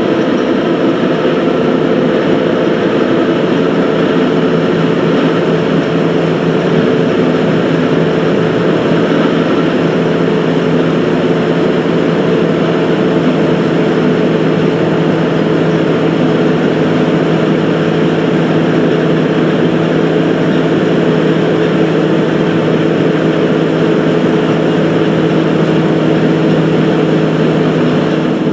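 Fertilizer unloading machinery running with a steady, unbroken mechanical drone: an inclined conveyor belt and a thrower carrying granules from the hopper wagons into the warehouse.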